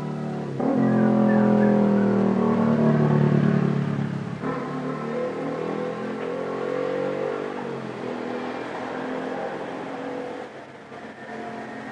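A car giving off a strange pitched sound, as if singing: several steady tones at once that get louder about half a second in and ease off after about four seconds.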